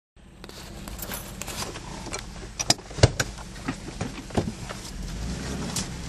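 Road noise inside a moving car: a steady low rumble from the engine and tyres, with many sharp clicks and knocks as the car rattles over a rough dirt road, the loudest a few knocks about three seconds in.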